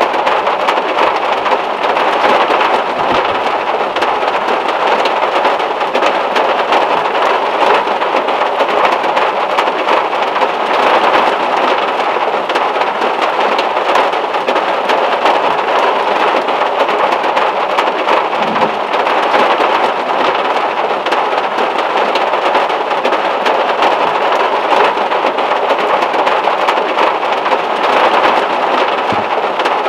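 Heavy rain falling steadily on a VW Beetle's metal roof and windows, an even patter that does not let up.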